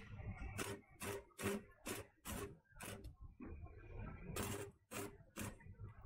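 Repeated sharp metallic taps of a hand tool working the steel wire mesh of a cage panel, about two a second, with a brief pause a little past the middle.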